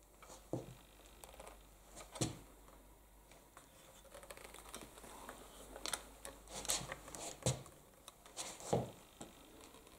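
Handling noises: scattered light knocks and clicks with some rustling, the loudest knocks about half a second, two seconds, seven and a half and nearly nine seconds in, with a quick run of clicks around six to seven seconds in.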